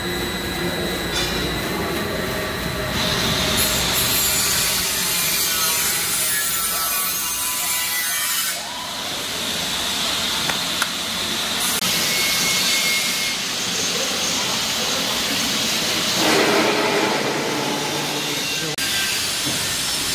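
Electromagnetic nut roaster running with its stainless-steel drum turning: a steady mechanical noise whose character shifts abruptly several times.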